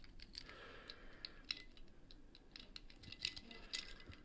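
Faint, scattered metallic clicks and scrapes of a key being worked in a seven-lever padlock as it is opened.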